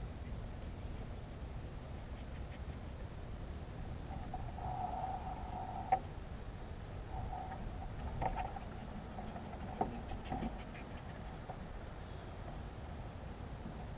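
Quiet outdoor ambience with a steady low hiss. Through the middle a thin whining tone comes and goes, along with a few short soft knocks, and brief high bird chirps sound near the end.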